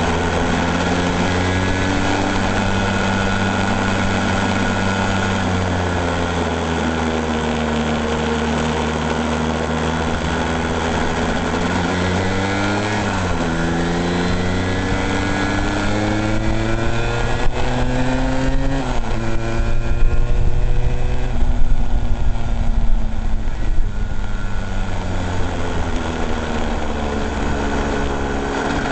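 An engine running, its pitch easing down slowly, then rising and falling back twice, about halfway through and again about two-thirds in. A louder, rougher stretch follows the second rise.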